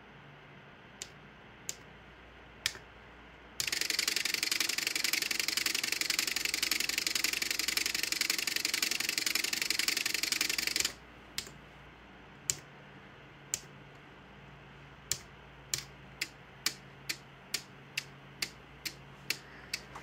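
Relays of a single-board relay computer switching as it runs: a few single clicks, then about seven seconds of fast, continuous relay chatter that stops abruptly. Separate clicks follow, coming closer together until there are about two a second.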